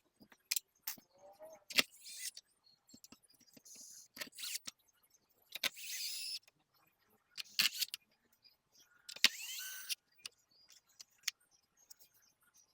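Small plastic and metal parts of a PS5 Slim being handled and fitted during reassembly: scattered sharp clicks and taps, with a few short, high scraping, jingling rattles under a second long.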